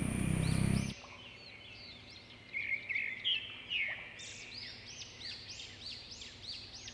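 Steady outdoor background noise that cuts off about a second in. Then birds chirping in a quick run of short, repeated rising-and-falling calls, busiest in the middle.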